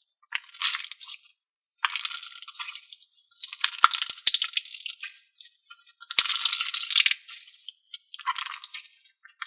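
Fart noise putty being squished in its pot, giving five crackly squelching bursts of about one to two seconds each with short gaps between: the fart-like noises the putty is made for.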